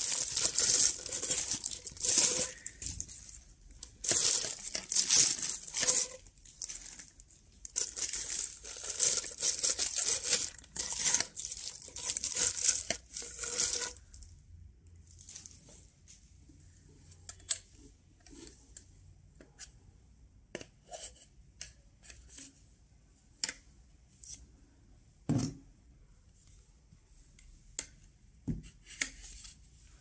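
Clear plastic bags crinkling and tearing in repeated bursts as vacuum-cleaner extension rods are pulled out of their wrapping. After about fourteen seconds the rustling stops, leaving scattered light clicks and knocks as the bare rods are handled and fitted together.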